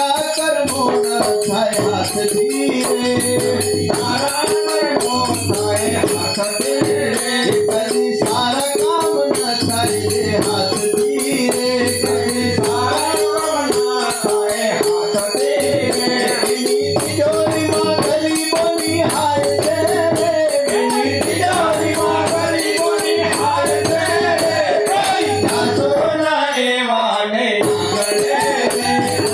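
Gujarati devotional bhajan sung live by a male voice over a harmonium's held notes and a tabla beat. Small hand cymbals (manjira) jingle steadily on the rhythm, and hand-clapping keeps time.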